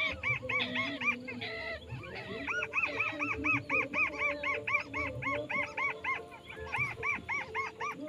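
A crake (burung tikusan) calling in fast runs of short notes that rise and fall in pitch, about five a second, in several bouts with brief breaks.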